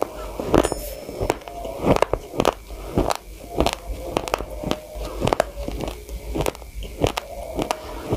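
Raw rice grains crunched between the teeth in close-up chewing: a steady run of sharp, irregular cracks, a few each second.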